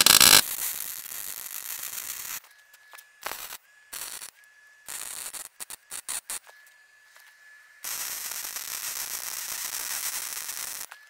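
Wire-feed welder arc crackling as steel plates are welded on in stops and starts: a run of about two seconds, a few short sputtering bursts, then a run of about three seconds. A faint steady high tone sounds in the pauses between welds.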